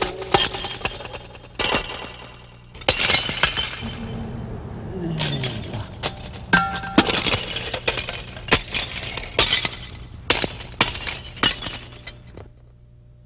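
Porcelain bowls and jars being smashed one after another onto a heap of shards: a series of irregular crashes with ringing, clinking pieces. These are kiln rejects, cracked or badly coloured, being destroyed after the firing.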